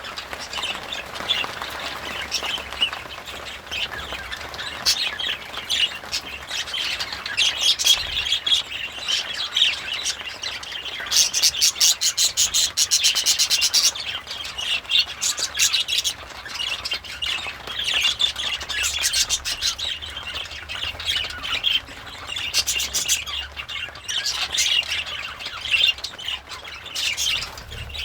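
Budgerigar chattering and warbling continuously, with short squawky chirps. A run of rapid, buzzy clicking notes comes about eleven seconds in and lasts around three seconds.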